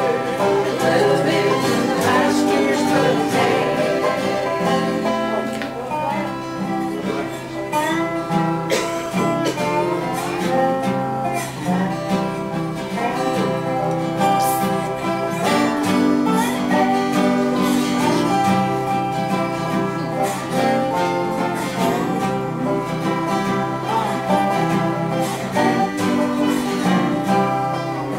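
Acoustic bluegrass-style music from a small string band: acoustic guitars, a five-string banjo and a resonator guitar played flat on the lap, playing together with a few sliding notes. It begins to fade near the end.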